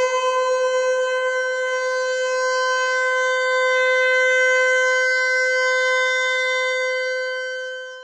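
Emergency alert siren tone: one steady, unchanging siren-like note with strong overtones, signalling the start of a danger alert. It fades near the end and then cuts off.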